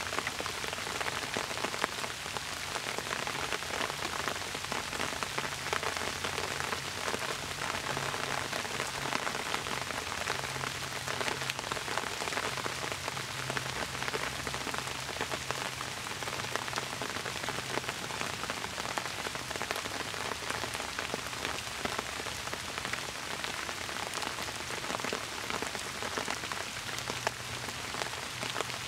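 Steady rain falling, with many separate drops heard through an even hiss.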